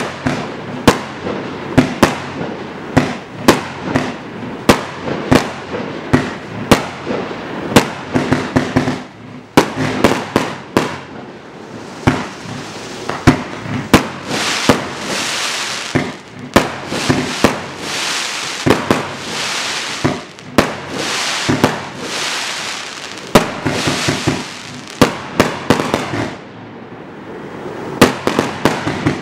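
A 50-shot 1.25-inch firework cake firing in sequence: sharp shots about once a second, with a quicker run near the end. Through the middle stretch, several of the bursts trail off in about a second of hiss.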